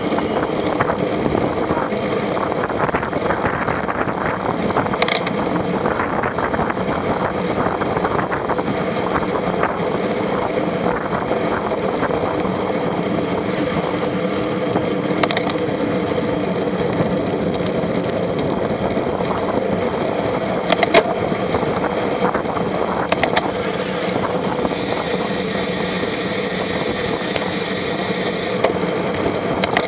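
A vehicle engine running steadily, with a few sharp clicks or knocks scattered through it.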